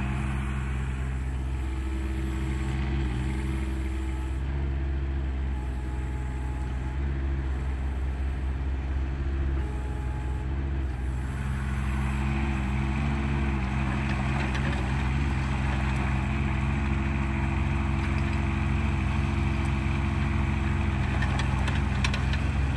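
Small 14 hp diesel engine of a Stag SE12 Plus mini excavator running steadily while its hydraulics work the arm and bucket. A louder rushing noise joins about halfway through.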